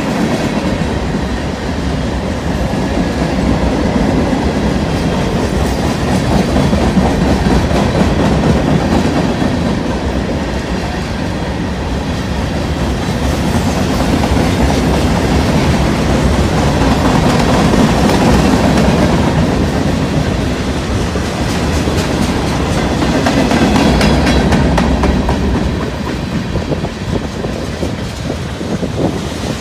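Freight train cars rolling past, wheels clattering over the rail joints in a steady, loud rumble that swells and eases a few times.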